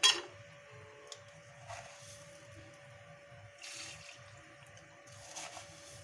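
A sharp metal clink as a steel sugar container is opened, then a few soft scraping, sprinkling sounds as a steel spoon scoops granulated sugar and tips it into a pan of milk and water. A faint steady hum runs underneath.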